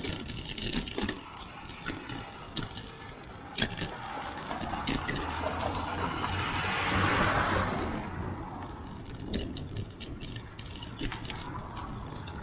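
Riding a bicycle along pavement: wind on the microphone and tyre rumble, with sharp clicks and rattles as the bike goes over cracks and bumps. A truck passes close by about seven seconds in, the loudest sound.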